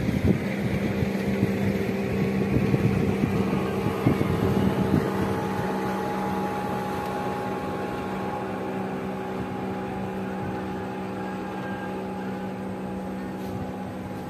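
Small motorboat's engine running steadily, gradually fading over the second half as the boat moves away.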